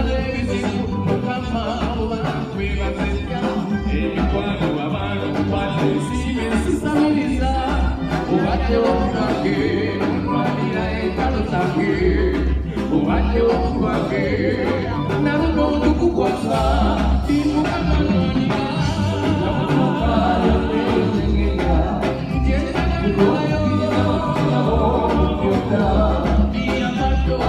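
Band and singer running through a song at a sound check: a sung melody over bass guitar and a strong, repeating bass beat.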